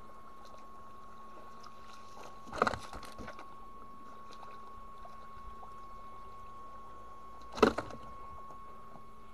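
Shallow muddy pond water splashing twice, sharp and brief, about five seconds apart, as fish are grabbed by hand and thrown during a pond harvest.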